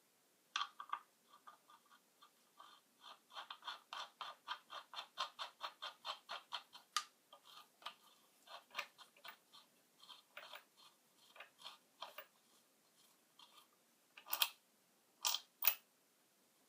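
A run of small mechanical clicks: quick and regular, about three or four a second, for several seconds, then slower and irregular, with a few sharper, louder clicks near the end.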